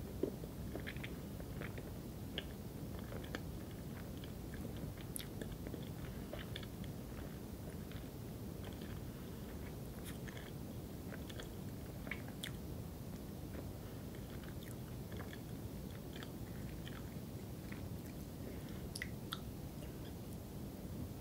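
Steady faint room noise with scattered small, sharp clicks and ticks.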